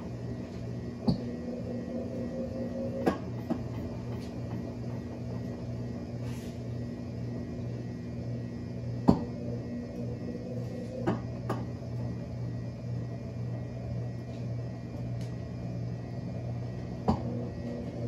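Brastemp BWH15 top-load washing machine draining, its motor and drain pump humming steadily as the basket turns with the load. A few sharp knocks come through, in pairs about two seconds apart.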